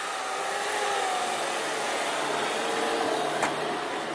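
Chevrolet Niva's engine running hard under load as the SUV drives through deep snow, a steady drone whose pitch drifts slightly, over the hiss of snow thrown by the tyres.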